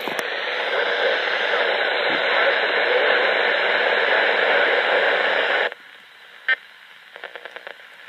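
Steady static hiss from a RadioShack 12-519 weather radio's speaker, which cuts off suddenly about two-thirds of the way through. A few faint clicks follow.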